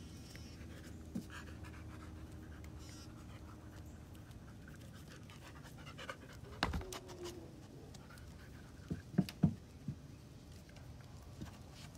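Dog panting steadily, with a sharp knock about halfway through and a few louder knocks about three-quarters of the way through.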